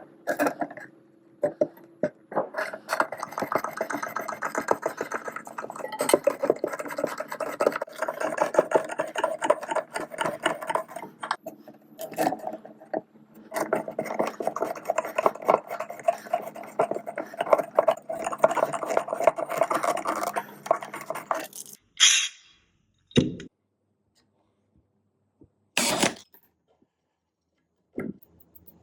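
A small motor-driven machine running with a rapid mechanical clatter in two long spells, with a short break between them. It is followed by a few brief hissing bursts and a thump.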